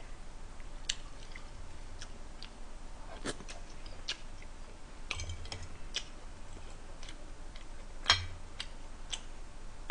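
Fork and knife clicking against a plate every second or two as food is cut and picked up, with soft chewing; the sharpest click comes about eight seconds in.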